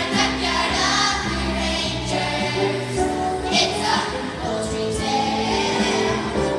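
A young chorus singing a show tune in unison with musical accompaniment.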